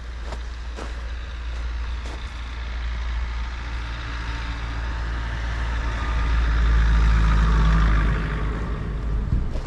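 A heavy motor vehicle passing close by: its low engine rumble and road noise build up, are loudest about seven to eight seconds in, then fade. Footsteps in snow are heard at first.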